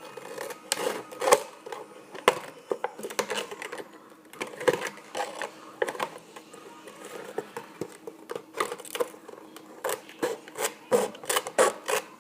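Plastic soda bottle being cut and handled: irregular crackling clicks and snaps of the thin plastic, coming in quick clusters, densest near the end.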